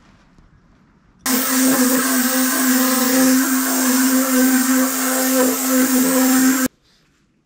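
Random orbital sander running on the wooden deck of a surfboard: a steady hum with a hiss over it. It starts abruptly about a second in and cuts off abruptly near the end.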